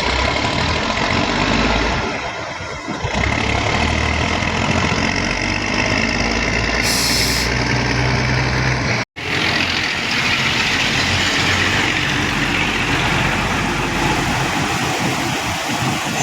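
Heavy diesel truck engine running steadily, with a short air hiss about seven seconds in and a sudden brief break in the sound just after nine seconds.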